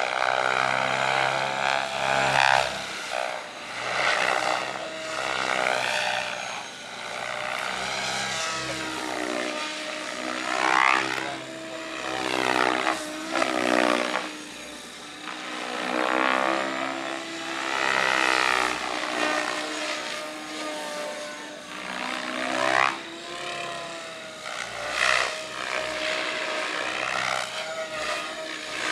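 Electric 700-size RC helicopter in flight, its main and tail rotors whining with a pitched hum that swells and fades every few seconds, sliding up and down in pitch as it sweeps past and manoeuvres.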